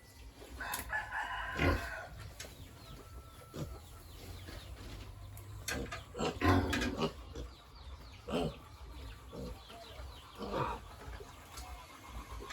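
A rooster crowing once, starting about half a second in, followed by several short calls from farm fowl, with clucking.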